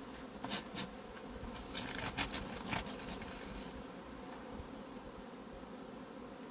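Honeybee colony humming steadily from an open hive, with a few short hisses in the first three seconds.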